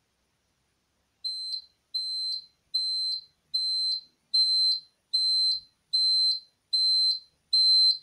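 Fire alarm control panel's fault buzzer beeping a high steady tone in short, evenly spaced pulses, a little more than one a second, starting about a second in. It signals a battery fault: the panel's standby battery has been disconnected.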